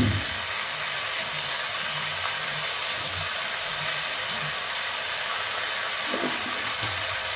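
Chopped vegetables frying in oil in a kadai, giving a steady sizzle, with a single knock right at the start.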